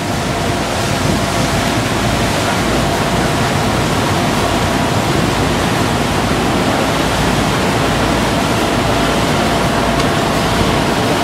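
Steady loud rushing of wind and water on the open deck of a moving ferry, with a faint steady tone under it.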